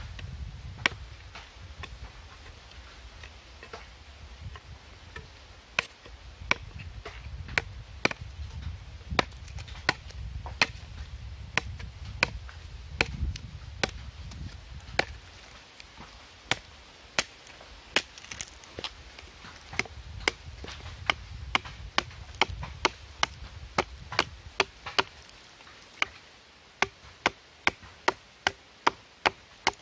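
A machete chopping through a bamboo stalk: a run of sharp knocks from the blade striking the bamboo, unevenly spaced at first and quickening to about two a second near the end.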